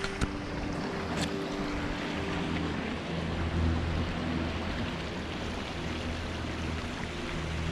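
Steady rushing of stream water flowing under a footbridge, with a low wind rumble on the microphone. A sharp click sounds just after the start and another about a second in.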